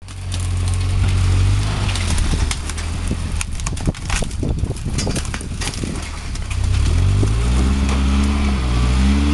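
A Toyota's engine running under load while branches crack and snap against the vehicle as it pushes through brush. The cracking is thickest in the middle, and the engine revs rise near the end.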